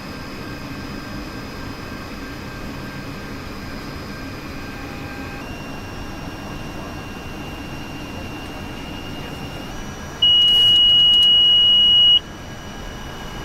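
Aircraft interior noise with faint steady electronic tones, then a loud, steady high-pitched beep that holds for about two seconds and stops sharply, typical of a cockpit alert tone during approach.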